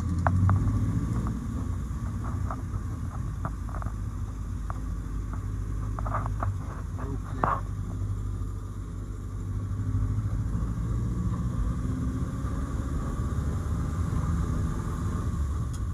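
The engine of a 68-year-old car running as it drives along, a steady low rumble, with scattered light clicks in the first half.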